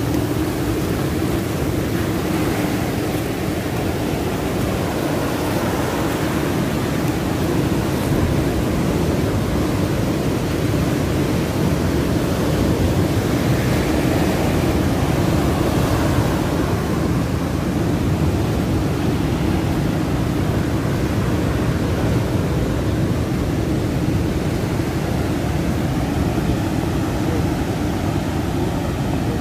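Steady roar of heavy ocean surf breaking against rocks.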